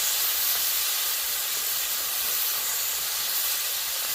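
Chili bean paste, scallion, ginger, garlic and star anise sizzling in hot oil: a steady hiss as the aromatics are fried until fragrant.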